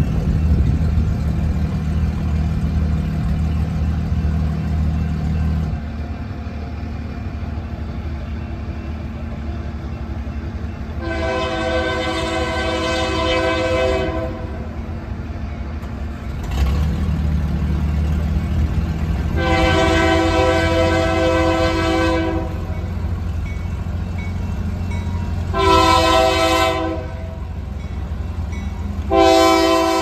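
Air horn of the lead locomotive, Union Pacific GE C44ACM 5923, sounding the grade-crossing signal as the train approaches: two long blasts, one short, then a long one starting near the end. The horn sounds a chord of several notes over a low diesel engine rumble that grows louder about halfway through.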